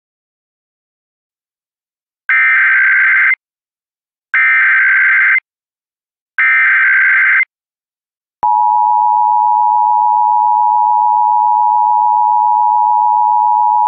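Emergency Alert System SAME header: three raspy digital data bursts of about a second each, two seconds apart. Then, about eight seconds in, the steady two-tone EAS attention signal starts and holds.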